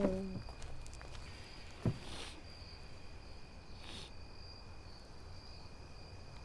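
Crickets chirping steadily in a night-time ambience, with a soft thump about two seconds in.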